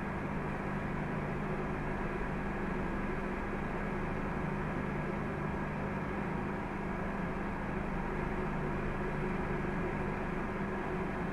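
Electric inflation blower running steadily to keep an inflatable water slide up: a constant rush of air with an even motor hum.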